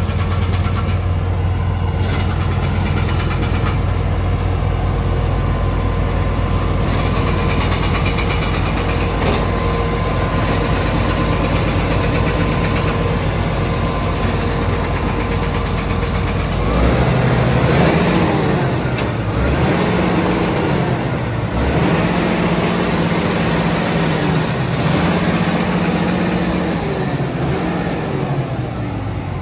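Komatsu D85ESS-2 bulldozer's diesel engine running steadily; a little over halfway in, its speed begins to rise and fall again and again.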